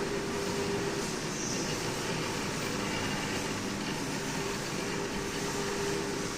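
Workshop machinery running steadily: a continuous mechanical noise with a steady hum held under it and no breaks.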